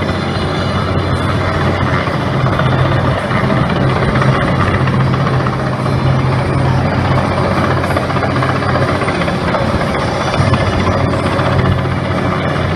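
Helicopter hovering overhead on a long load line: a loud, steady drone of rotor and engine with a strong low hum underneath.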